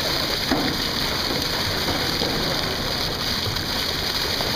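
Water gushing steadily from a fish-stocking truck's chute and splashing into a lake as rainbow trout are released, over a low steady rumble.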